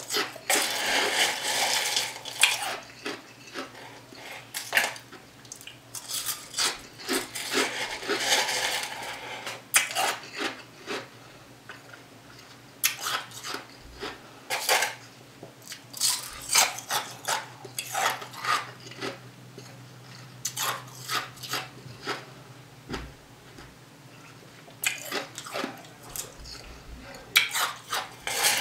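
Plastic spoon scraping and clicking against the inside of a cup while dessert is scooped out, spoonful after spoonful. There are longer scrapes near the start and around eight seconds in, and many short clicks in between.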